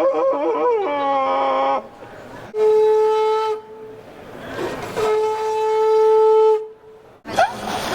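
A bicycle handlebar tube blown into like a horn: a wavering, pitch-bending tone, then two steady, buzzy horn-like notes, the second one longer.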